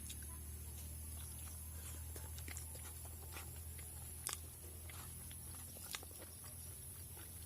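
Eating sounds close to the microphone: chewing, with scattered small clicks and two sharper ones about four and six seconds in, over a steady low hum.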